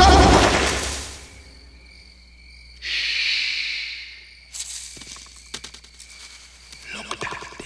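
Background music fades out in the first second, leaving a faint steady chirr of night insects. About three seconds in, a hiss sweeps through for a second and a half, followed by scattered clicks and rustles in the second half.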